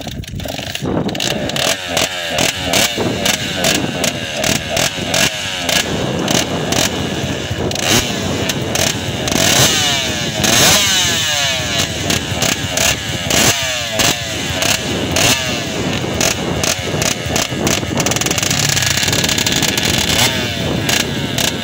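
Motocross dirt bike engine revving up and falling back again and again, its pitch climbing through each gear.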